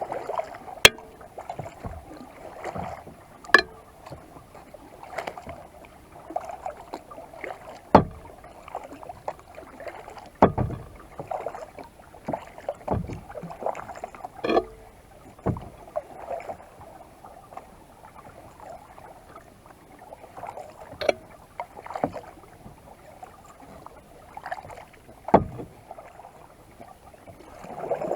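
Kayak paddling: paddle blades splashing and dripping with each stroke. Several sharp knocks come every few seconds.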